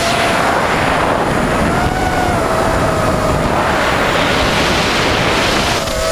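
Racing quadcopter's four Emax 2205 2300KV brushless motors and three-blade props whining steadily, the pitch drifting up and down with throttle and dipping then rising near the end. Heavy wind rush on the onboard camera's microphone.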